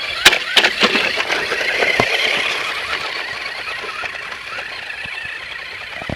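Remote-control truck's electric motor whining as it drives over gravel, with a few sharp knocks in the first two seconds; the whine swells and then slowly fades.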